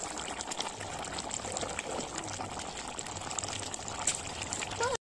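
Chicken and potato curry boiling hard in a wide metal kadai: steady bubbling and popping of the gravy, which cuts off suddenly near the end.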